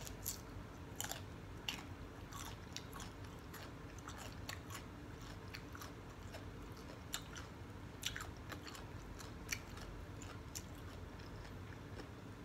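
A person chewing raw cucumber: irregular crunches and small clicks, a few of them sharper than the rest.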